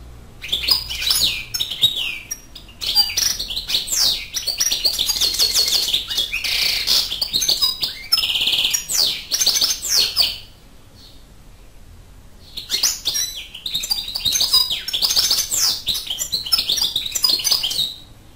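European goldfinch singing: rapid, liquid twittering and trills in two long bouts, with a pause of about two seconds between them.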